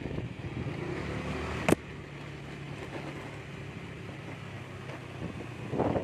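Steady low hum of a running motor, with a single sharp click about a second and a half in, after which the hum carries on more quietly.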